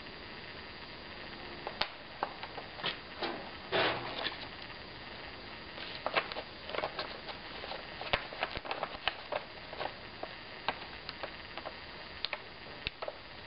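Plastic hood crinkling and rustling as it is pulled on and fitted by hand, in irregular short crackles and clicks.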